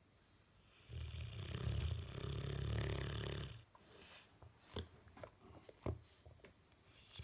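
Bullmastiff snoring in its sleep: one long, deep snore lasting about two and a half seconds, starting about a second in. A few short clicks follow in the quieter gap, and the next snore begins right at the end.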